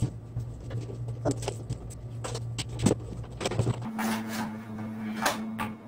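Cardboard packaging being opened by hand: a run of sharp clicks and scrapes as the box is unsealed and the inner box is slid out, over a low steady hum.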